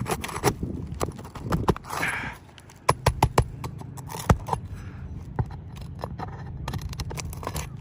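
Sharp taps, clicks and scrapes of a hand tool working under asphalt roof shingles to reach and pull their nails. A quick run of knocks comes about three seconds in, with a louder single knock a little after four seconds.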